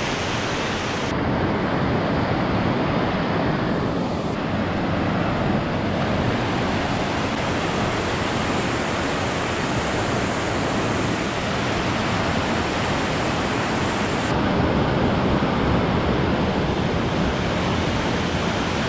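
River weir in full flood flow: a steady, loud rush of water churning through the weir gates and the white water below.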